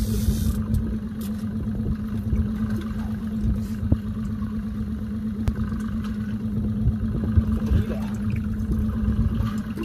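Evinrude outboard motor running at a steady trolling speed, a constant even drone, over an irregular low rumble of wind and water, with a few light clicks.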